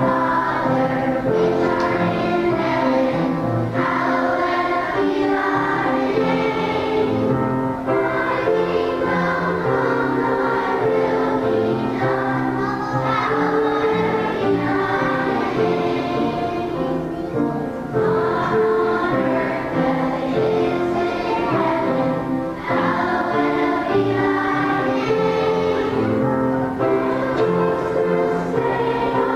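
A choir singing a song in a church, the voices holding long notes.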